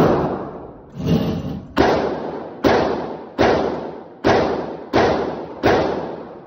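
Gunshots fired in steady succession in an indoor shooting range, about seven shots roughly 0.8 seconds apart. Each shot rings on in the room and fades before the next.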